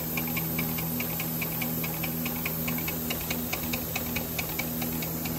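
Small live steam locomotive running on compressed air on the bench during an air test of the rebuilt engine: a steady hiss of air with rapid, even ticking, about five a second, over a low hum.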